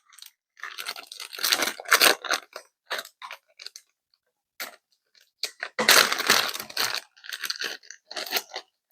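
Packaging torn open by hand: irregular bursts of ripping and crunching, heaviest about a second in and again past the middle, with short pauses between.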